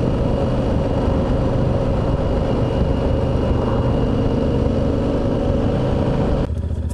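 Yamaha Super Ténéré parallel-twin motorcycle ridden at town speed, engine running steadily under wind noise on the onboard microphone. Near the end the sound cuts off abruptly to a quieter one.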